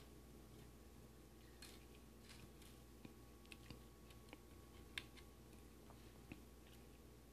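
Near silence with about ten faint, scattered small clicks, the sharpest about five seconds in: components and jumper wires being pushed into a solderless breadboard.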